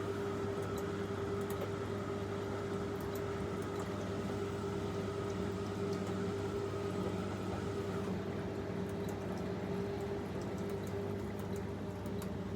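Washing machine running: a steady hum with water noise, and a faint higher whine that stops about two-thirds of the way through.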